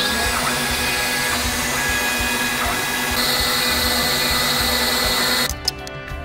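Laser cutter running: a steady whooshing machine noise with a low hum, and a higher steady whine joining about three seconds in. The noise cuts off suddenly near the end, leaving quieter clicks.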